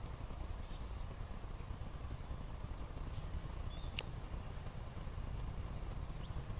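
Birds calling outdoors: short, high notes sweeping downward, repeated every second or two, with faint high ticking between them over a low steady rumble. A single sharp click about four seconds in.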